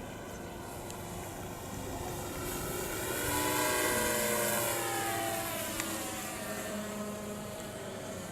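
Electric 1400 mm RC P-51 Mustang with an onboard engine-sound unit flying past. Its simulated piston-engine note and propeller rise in pitch as it approaches, are loudest about four seconds in, then drop in pitch as it goes away.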